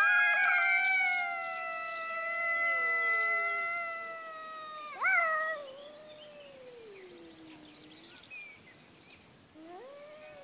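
Tabby cats in a fighting standoff, caterwauling: a long, wavering yowl that slowly slides down in pitch, then a fresh yowl about five seconds in that jumps up and falls away, and another beginning near the end. This is the drawn-out threat yowling of a cat fight.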